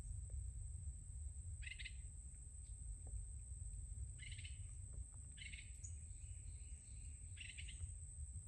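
A songbird repeating a short chirping phrase four times, over a steady high-pitched hum and a constant low rumble.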